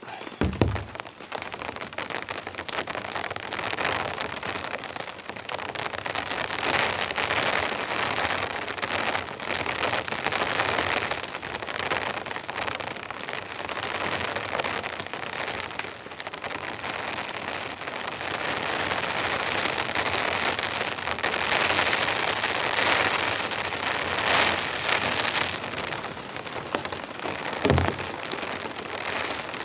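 Steady rain falling on the tarp and tent, growing heavier and easing in waves. There is a low thump just after the start and another near the end.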